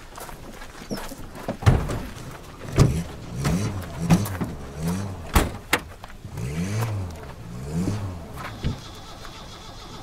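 Car doors and boot lids banging shut, several sharp knocks, over car engines whose pitch rises and falls again and again, as at repeated light revving.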